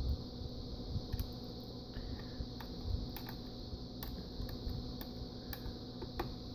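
Scattered light clicks and taps from handling the parts of a self-balancing scooter, over a steady faint hum.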